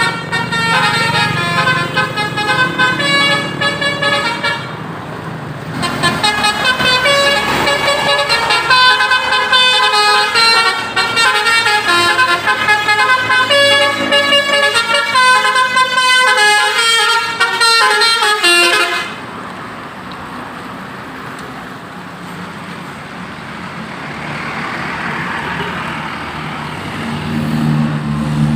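Basuri 'telolet' multi-tone horn playing a quick melody of short stepping notes, with a brief break about five seconds in. It stops about two-thirds of the way through, leaving quieter steady noise and a low hum near the end.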